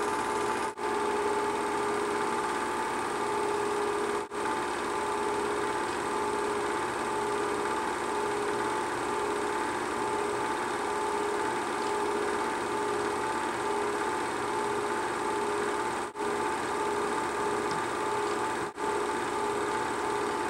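Film projector running: a steady motor and fan hum with a hiss over it, dipping out very briefly four times.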